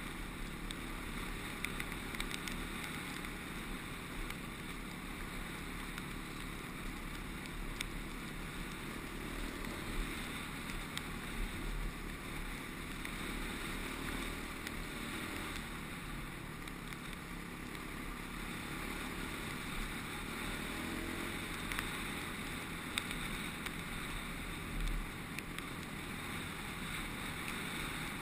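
Honda CRF250X dirt bike's single-cylinder four-stroke engine running steadily at riding speed, heard from the rider's helmet with wind noise over the microphone. A few sharp ticks of gravel from the track come through.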